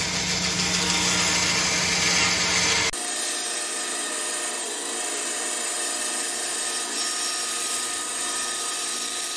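Bandsaw running and its blade cutting a curve through a wooden block. About three seconds in, the sound changes abruptly as the footage switches to sped-up playback: the low hum drops away and the cutting noise goes on thinner.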